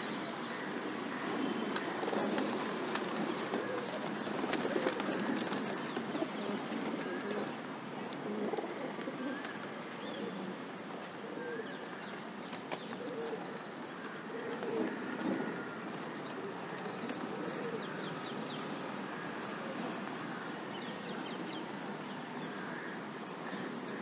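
Feral rock pigeons cooing in a low, continuous murmur that swells a few times, with small birds chirping now and then above it. There are light ticks of beaks pecking grain on the ledge.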